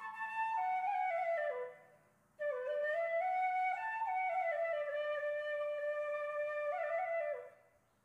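Background music: a solo flute playing a slow melody in two phrases that drift downward, with a short break about two seconds in. It fades out near the end.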